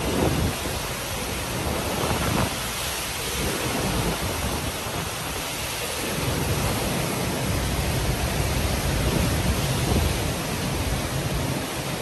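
Typhoon-force wind blowing in strong gusts, with heavy low buffeting of the wind on the microphone over a constant hiss.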